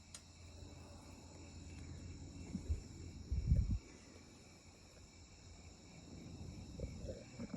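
Steady, high-pitched chorus of insects calling, with two low thuds, the louder about three and a half seconds in.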